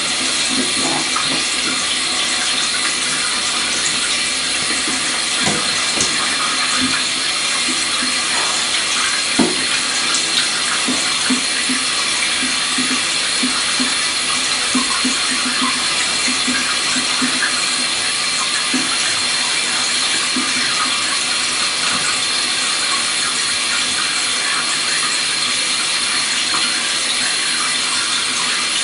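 Water running steadily into a bathtub from a shower hose, with a brief knock about nine seconds in.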